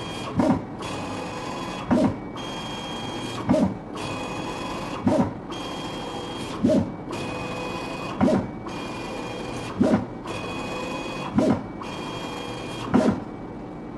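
RIGHT RT1800JC plotter's print carriage sweeping back and forth across the paper, a steady motor whine on each pass with a louder whirr at each turnaround about every one and a half seconds. The machine stops near the end.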